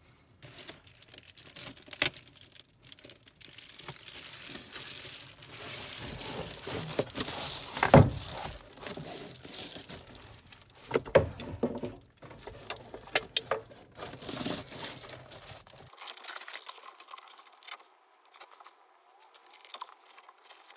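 A roll of reflective bubble-foil insulation crinkling and rustling as it is unrolled and pressed against a window. Scattered knocks and taps come through, the loudest about eight seconds in.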